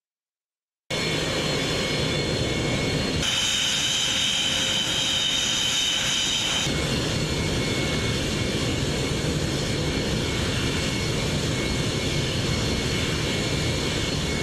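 Carrier-based jet fighter's engines running: a loud steady rush with a high whine, starting abruptly about a second in. The whine is strongest from about three to seven seconds in.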